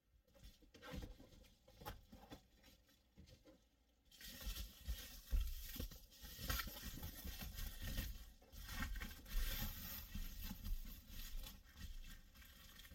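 Reflective window covers being handled and pressed into a car's rear windows: crinkling and scraping with light knocks. Scattered at first, the rustling turns steady and louder about four seconds in.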